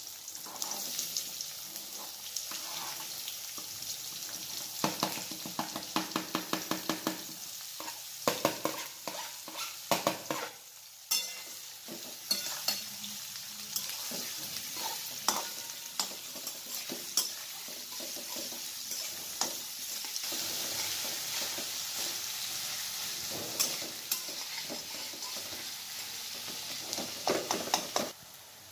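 Sliced onions sizzling in hot oil in a wok, with a metal spatula scraping and tapping against the pan as they are stirred. Runs of quick taps come about five seconds in and again near the end.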